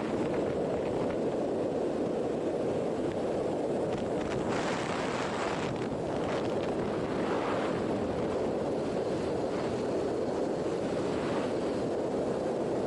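Steady wind rushing over the microphone on top of the running noise of a moving vehicle.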